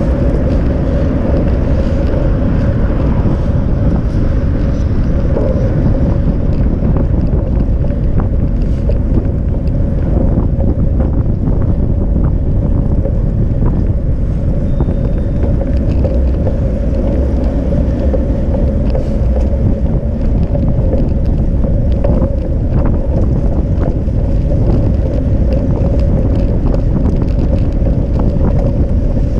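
Wind rushing over the microphone of a camera riding along on a bicycle, over a steady low rumble and hum from rolling along the path, with scattered small knocks and rattles.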